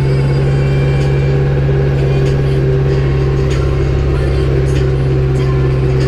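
Zetor 6340 tractor's diesel engine running steadily under load while pulling a Cambridge roller, heard from inside the cab as an even drone with faint clicks and rattles.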